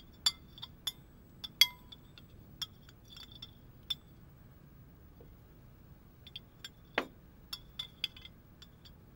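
Cutlery and glassware clinking at a dinner table: scattered light clinks in two clusters with a short lull in the middle, and a duller knock about seven seconds in.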